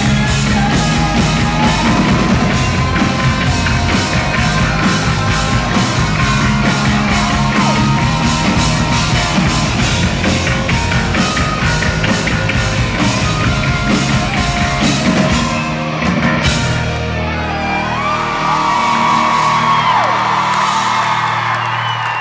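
Live rock band with a lead singer, heard loud from the audience, drums keeping a steady beat under the singing. About three-quarters of the way through the band stops, and shouts and whistles from the crowd follow.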